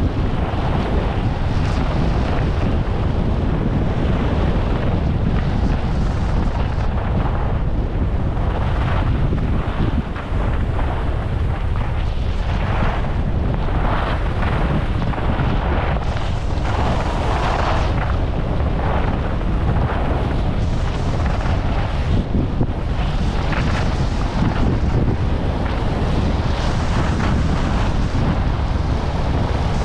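Wind buffeting a GoPro HERO11's microphone while skiing at speed, a steady low rumble. Over it comes the hiss and scrape of skis carving on packed snow, swelling with each turn.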